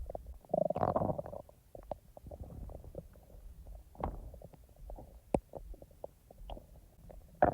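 Human stomach gurgling as it digests: a loud bubbling gurgle about half a second in, then scattered short pops and squelches, with another brief gurgle near the end.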